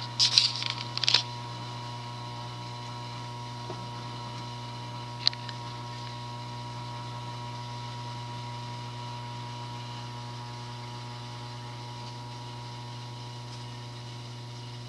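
Fasco State Fair ceiling fan running on low speed: a steady low hum with fainter steady tones above it. A few sharp clicks come in the first second or so, and one more about five seconds in.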